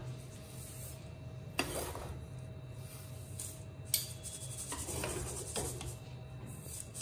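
Salt sifting through a wire-mesh strainer as it is shaken over a steel pan, a steady gritty rustle that leaves the roasted wheat grains behind in the mesh. A couple of sharp metal taps come through, about a second and a half in and again at about four seconds.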